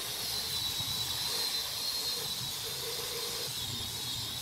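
Angle grinder fitted with a sanding disc running steadily against a wooden board: a high motor whine over the hiss of the disc sanding the wood.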